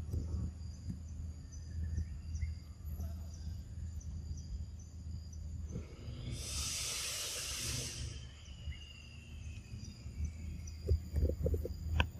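Outdoor ambience: a steady low rumble with faint, steady high-pitched tones like insects, and a high hiss that swells for about two seconds midway.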